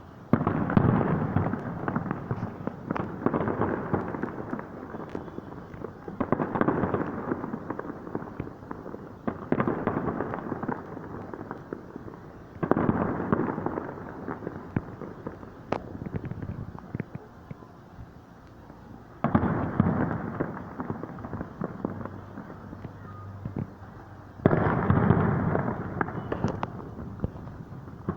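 Fireworks display: aerial shells bursting in loud volleys of booms and crackles every few seconds, each volley starting suddenly and rumbling away.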